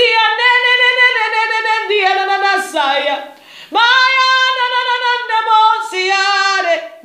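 A woman singing unaccompanied in long, held notes, with a short break for breath a little past three seconds in.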